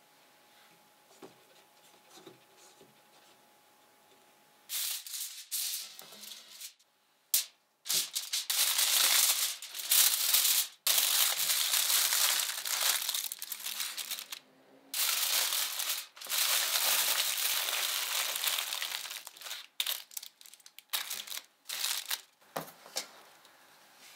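Aluminium foil crinkling loudly as it is pressed and folded around sweet potatoes, in long stretches with short pauses. It starts about five seconds in, after a near-quiet opening.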